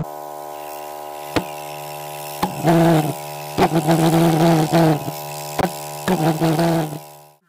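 Homemade valveless pulsejet failing to start: irregular loud coughs and pops as the gas catches briefly and dies, over a steady electric buzz from its spark igniter. The buzz and the pops stop abruptly near the end.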